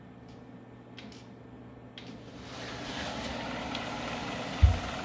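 Océ TCS 500 wide-format plotter feeding paper from its roll drawer: a few faint clicks, then about halfway in the roll drive starts and runs steadily as the paper is drawn in smoothly for trimming. A brief low thump near the end.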